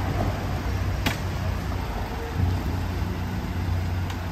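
Vehicle engine running steadily with a low rumble, and a single sharp click about a second in.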